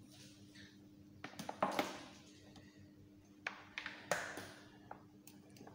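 Several light, scattered taps and clicks from handling, with a brief rustle about four seconds in, over a faint steady hum.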